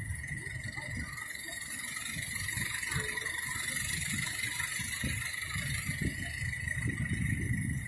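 Miniature ride-on railway train running along its track, heard from aboard the passenger cars: a low rumble of wheels on rail with irregular knocks and rattles, growing a little louder, over a steady high-pitched tone.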